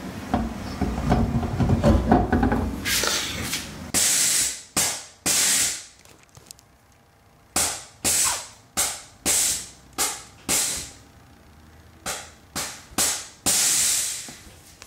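Air-ride suspension letting air out of the bags in a string of a dozen or so short, sharp hisses, coming in clusters of a few at a time, as the car is lowered onto its wheels. It is preceded by a couple of seconds of low clunking as the wheel is fitted.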